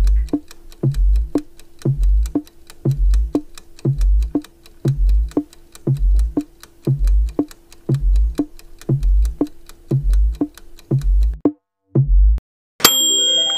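Quiz countdown timer music: a low bass pulse once a second under quick wood-block-like ticks, keeping time with the on-screen count. It cuts out about a second before the end. Then a bright chime rings and applause begins as the timer reaches zero.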